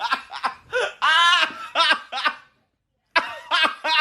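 High-pitched laughter in short bursts, breaking off briefly a little past halfway and then starting again.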